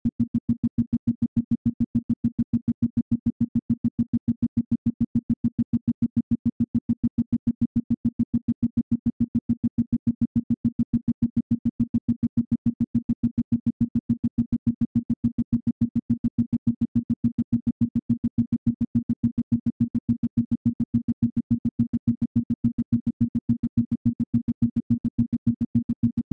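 Isochronic tone: a single low synthesized tone switched on and off in rapid, evenly spaced pulses, several a second, at a steady level.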